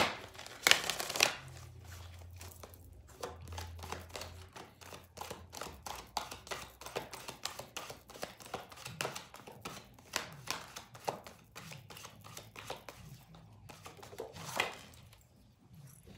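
A deck of oracle cards being shuffled by hand: a long run of quick papery flicks and clicks as the cards slap together, with a louder burst about a second in.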